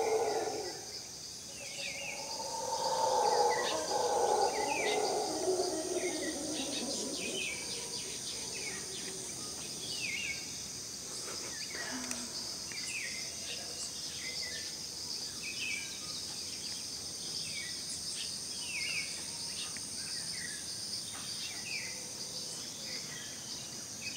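Mantled howler monkeys roaring, loudest about three seconds in and fading away by about seven seconds. Throughout, short falling chirps repeat about once a second over a steady high-pitched insect drone.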